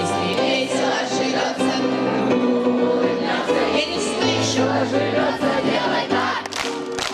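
A group of children singing a cheerful action song along with a recorded instrumental backing track. Near the end there are two sharp strokes, like claps.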